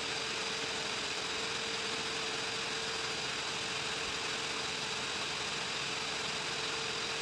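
Steady drone of running machinery, an even noise with a constant hum that does not change.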